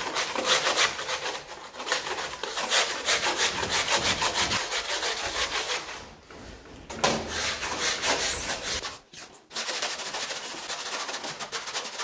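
Hand scraper rasping in rapid, repeated strokes along the joint between the floor tiles and the foot of the wall, with short breaks about six and about nine seconds in.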